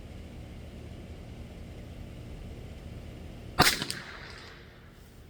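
A single .22 LR rifle shot about three and a half seconds in, sharp and short, with a brief echo trailing after it.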